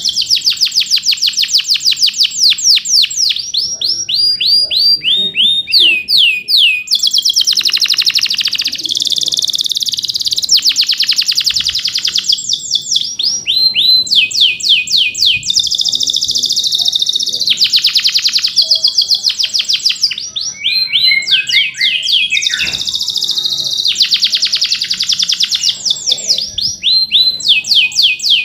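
Male domestic canary in full song: a continuous run of fast rolling trills, each made of rapid repeated notes sweeping down in pitch, broken by chirping notes and changing into a new phrase every second or two.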